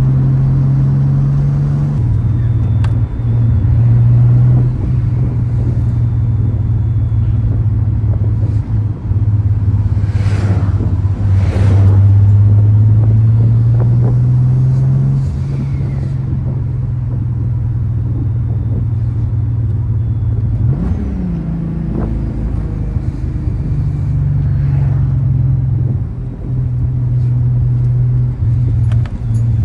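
Turbocharged VR6 engine and exhaust running under way, holding fairly steady revs with the engine note stepping up and down several times. There are a couple of short rushes of noise about a third of the way in and a brief rise and fall in pitch about two-thirds of the way through.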